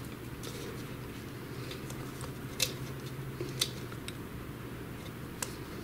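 Light clicks and taps of small hard parts being handled on a workbench: three distinct sharp clicks, two about a second apart near the middle and one near the end, over a faint steady low hum.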